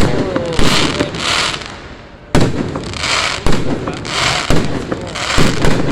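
Fireworks exploding one after another: sharp bangs about every second, each followed by a fading crackle. The loudness dips, then a hard bang comes about two and a half seconds in.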